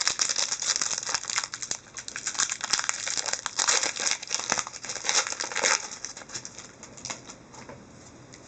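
Crinkly wrapper of a hockey card pack being torn open and handled, crackling densely for about six seconds, then a few quieter rustles.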